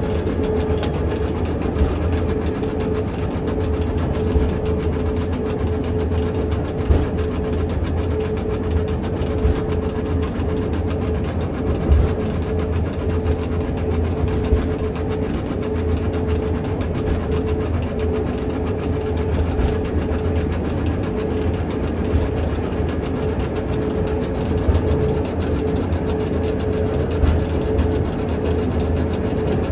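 Pilatus Railway's electric cogwheel railcar running on the steep Locher rack track, heard from inside the car: a steady rumble with a constant whine, and a few short knocks.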